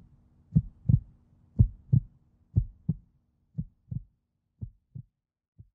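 Heartbeat sound effect: paired lub-dub thumps about once a second, growing fainter toward the end.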